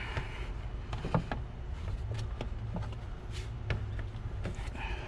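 Scattered light clicks and knocks of hand-work on plastic intake parts and clamps in an engine bay, over a steady low rumble.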